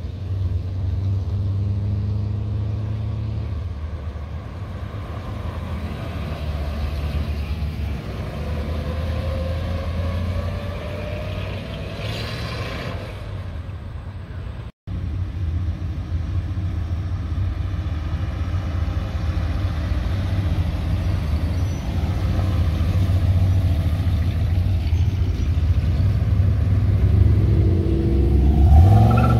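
Classic American cars with V8 engines driving slowly past one after another, a steady low engine rumble, with one engine note rising as a car pulls away partway through. Near the end an early-1960s Ford Thunderbird's V8 passes close, the loudest moment, its note rising and then falling. A brief break in the sound about halfway.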